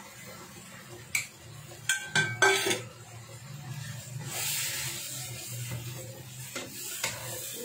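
Wooden spatula knocking and scraping in a wok as a chili paste is stirred, with a few sharp clinks in the first three seconds. Sizzling of the paste frying in oil swells from about four seconds in, over a steady low hum.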